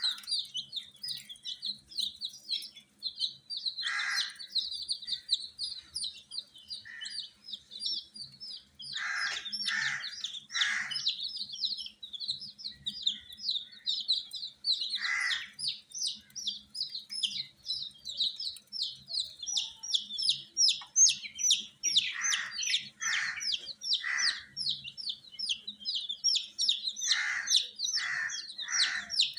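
A brood of domestic chicks peeping: many high, rapid chirps overlapping into an unbroken chorus, with short lower-pitched calls breaking in now and then, in clusters around a third of the way in and near the end.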